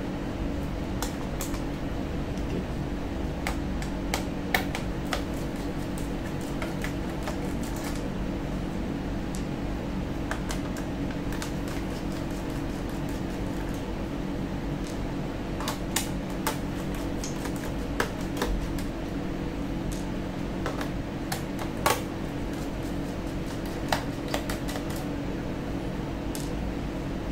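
Scattered small clicks and taps of a screwdriver and loose screws as the bottom-case screws of a laptop are taken out, over a steady low hum.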